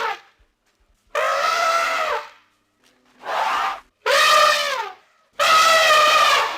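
Elephant trumpeting: four loud calls of about a second each, separated by short silences, several dipping in pitch at the end, with the tail of an earlier call fading out at the start.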